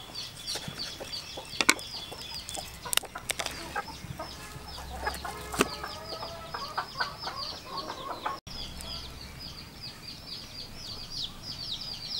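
Chicks peeping: short, high, falling chirps, about four or five a second, without a break. A few sharp clicks come from a knife cutting the roast chicken, and there is lower clucking in the middle.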